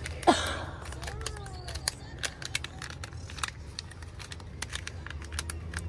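Small package being opened by hand: a run of sharp crinkling and tearing clicks over a low steady hum, with one short falling squeak near the start.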